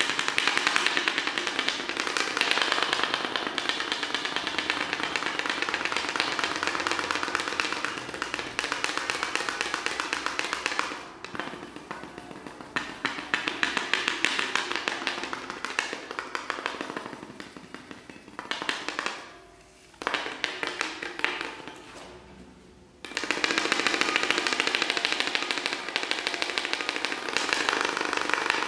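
Film projector running: a rapid, dense mechanical clatter of the film advance. It thins out and drops away a few times in the second half before coming back at full strength.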